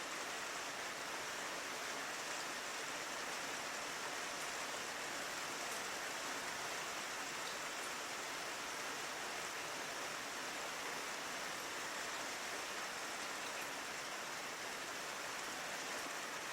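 Steady rain pattering against a window pane: an even hiss with a few faint drop ticks standing out now and then.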